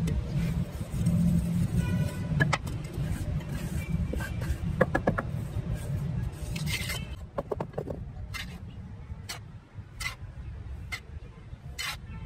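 Steel trowel and wooden float scraping and tapping on wet cement in a concrete mould, a run of sharp clicks and scrapes with about one tap a second near the end. A low steady rumble sits under it and weakens about eight seconds in.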